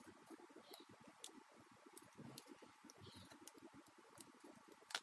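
Near silence: faint scattered clicks and light scratching from small plastic model-kit parts being handled.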